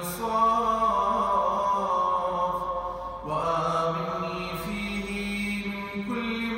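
A man chanting an Arabic Ramadan supplication (dua) in long, drawn-out melodic notes, with a short break for breath about three seconds in.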